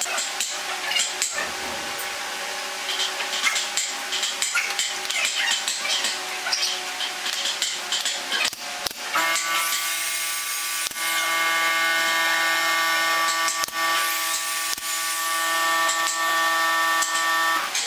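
Wooden strips knocking and rubbing against each other and the concrete floor as they are handled. About nine seconds in, a steady motor hum starts and runs evenly for about eight seconds before cutting off.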